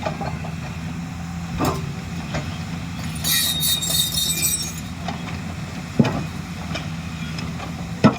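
Backhoe's diesel engine running steadily, with sharp knocks from the machine about a third of the way in, near the end, and just before it stops. A high screech runs for about a second and a half near the middle.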